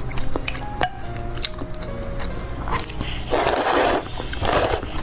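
Background music with soft clicks of eating, then three loud noisy slurps of hot-and-sour glass noodles in the second half, each under a second long.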